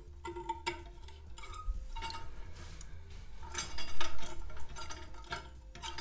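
Small metal ball chain clinking against a brass toilet lever arm, with water splashing and sloshing in the toilet tank as the chain is hooked on, and a louder burst of splashing about four seconds in.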